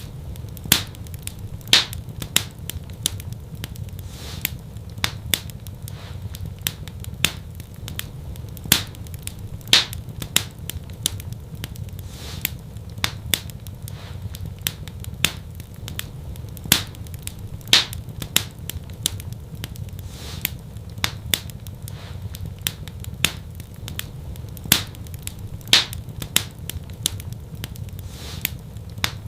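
Wood fire crackling: sharp, irregular pops and snaps several times a second over a steady low rumble of burning.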